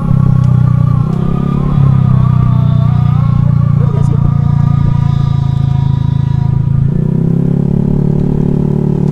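Honda Vario scooter's engine running steadily while being ridden. Its note shifts about two seconds in and again about seven seconds in.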